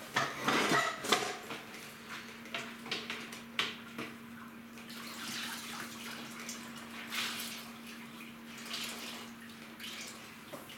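Wet string mop worked up and down in a mop bucket of water: sloshing, squelching and dripping in repeated strokes, loudest in the first second or so. A steady low hum runs underneath.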